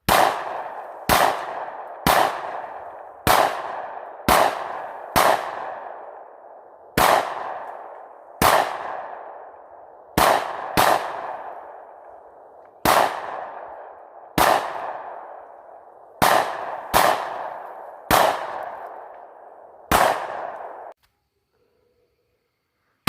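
A string of about sixteen handgun shots fired one at a time, roughly one a second with a few quicker pairs, each shot trailing off in a decaying ring.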